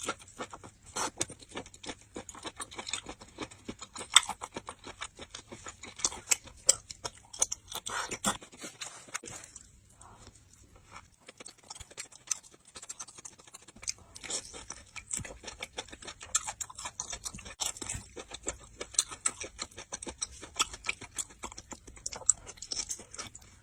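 Close-miked mukbang chewing of bobo chicken skewers, a dense run of short wet clicks and smacks, thinning out for a few seconds in the middle.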